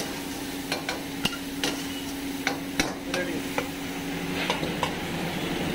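Metal ladle clanking and scraping against a wok as meat is stir-fried in sauce, in irregular sharp strikes about every half second, over a steady low hum.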